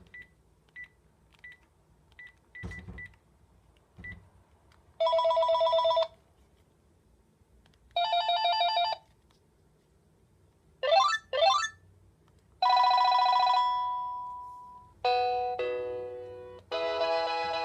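Panasonic KX-TG7641 cordless phone handset: short key beeps and soft button clicks, then its ringtones playing one after another. Two warbling electronic rings of about a second each, two quick rising chirps, a long tone that fades out, a run of stepping-down notes, and a fuller melodic ringtone starting near the end.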